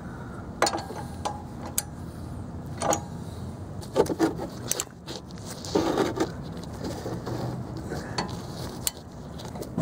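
Hand tools being handled on a car's brake assembly: a scatter of separate metallic clinks and knocks as a socket and torque wrench are fitted to the caliper bracket bolts, with the loudest knocks about four and six seconds in.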